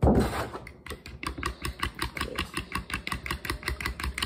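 Eggs and milk being beaten in a bowl, the utensil clicking against the bowl in a quick steady rhythm of about six strokes a second. A short noisy rush comes at the very start.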